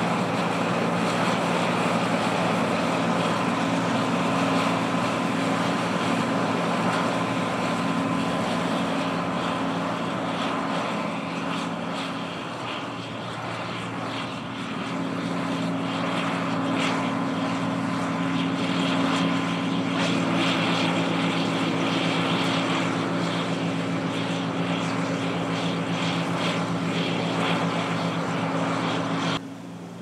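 A steady engine drone holding a few low pitches. It dips slightly in loudness around the middle and drops suddenly just before the end.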